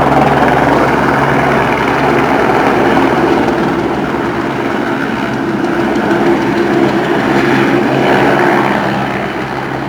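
Police helicopter's rotor and turbine running with a steady, loud drone that eases off a little near the end.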